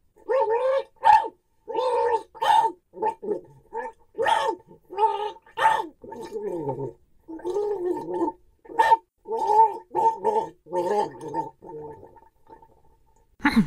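Cartoon beaver character's wordless vocal noises: a fast run of short mumbled, gibberish syllables that thin out and fade near the end.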